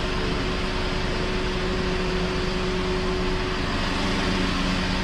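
Car engine idling with the air conditioning running: a steady hum and blower noise with one constant tone, during a vent-temperature test while the refrigerant charge is being set.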